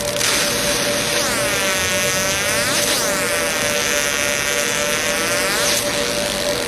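Fiber laser marking machine running while it engraves a steel tumbler: a steady buzzing hum with a hiss over it, taking on a sweeping, swirling sound from about a second in and again from about three seconds in.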